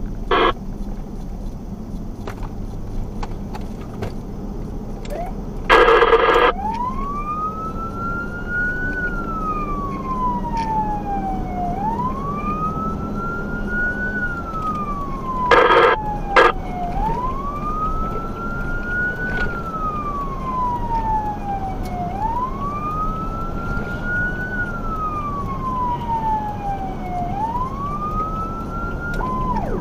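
Fire engine siren on a slow wail, rising and falling about every five seconds, with loud horn blasts: a short one at the start, a longer one about six seconds in just before the wail begins, and two more about sixteen seconds in. Near the end the siren switches to a fast yelp, over steady engine and road rumble.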